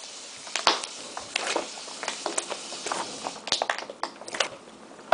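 Irregular soft clicks, taps and rustles of hands handling slime and pom-poms.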